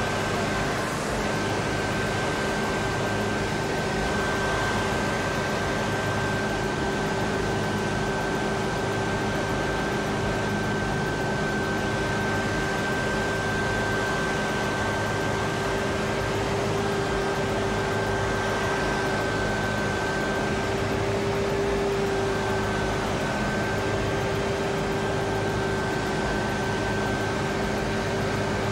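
Steady machine drone with a constant rushing noise and two steady whining tones, one mid-pitched and one high, that waver slightly.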